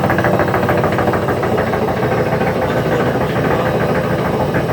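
Wagner washing machine's drum turning with a loud, steady mechanical rattle of rapid knocks over a low hum, which the repairman puts down to a broken drum spider (the cross-piece that carries the drum).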